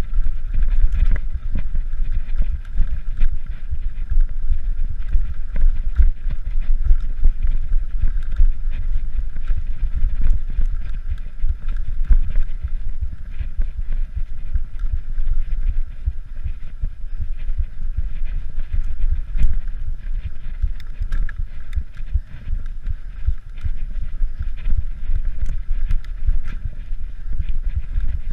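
Mountain bike rolling over sandstone slickrock, heard from a camera on the rider: a steady low rumble of tyres and wind on the microphone, with many small clicks and rattles from the bike.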